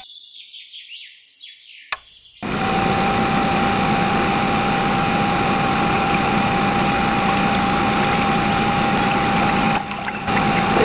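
Small electric motor of a DIY mini water pump starting suddenly about two and a half seconds in and running steadily with a constant whine, while pumping water out through the pipe.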